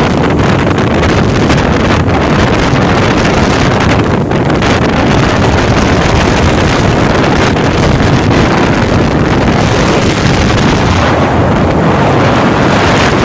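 Loud, steady wind rush buffeting the microphone on a moving motor scooter, mixed with the scooter's engine and road noise.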